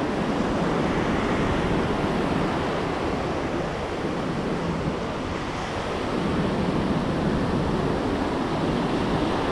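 Ocean surf breaking and washing up the beach in a steady rush that eases a little midway and builds again, with wind on the microphone.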